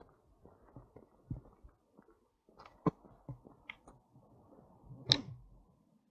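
Footsteps crunching along a rough footpath: uneven scuffs and low thuds, with a sharp click about three seconds in and a louder one about five seconds in.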